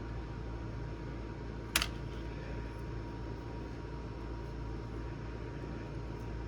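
Steady hum of a room air-conditioning unit, with a single sharp click about two seconds in as the laptop keyboard's ribbon cable is worked into its connector.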